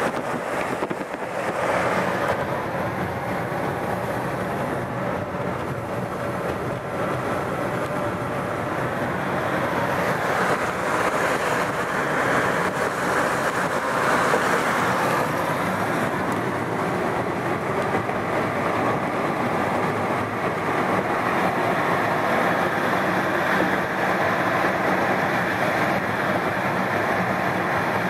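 Steady road noise from a car driving at speed: a continuous rush of tyres and wind, getting a little louder about a third of the way through.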